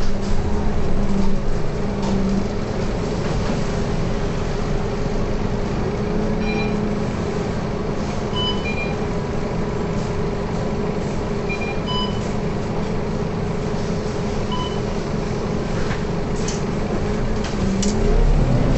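Scania K230UB bus's rear-mounted 9-litre five-cylinder diesel running steadily, heard inside the passenger cabin. Several short high electronic beeps sound in the middle, and a couple of sharp clicks come near the end.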